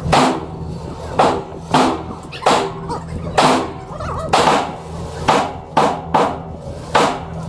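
Gunshots in an indoor shooting range: about ten shots at uneven intervals, a few of them in quick pairs, each ringing briefly off the concrete lane walls, over a steady low hum.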